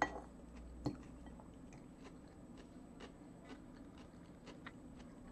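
Faint close-up chewing and biting of fish sticks and vegetable salad, with soft crunches. Two sharper clicks of a fork against the plate come at the start and about a second in.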